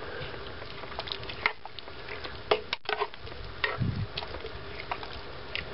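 A metal spoon stirring thick chili in a cast-iron pot: irregular clinks and scrapes against the pot, with wet squelching of beans and tomatoes.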